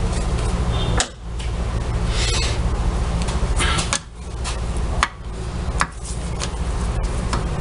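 Clinks and knocks of metal parts from a washing machine transmission being handled, a few sharp ones spread through, over a steady low hum.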